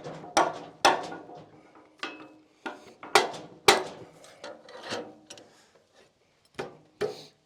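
Cant hook and short oak log knocking against each other and against the sawmill bed as the log is rolled over: about a dozen sharp, irregular knocks and clanks, some with a brief ring.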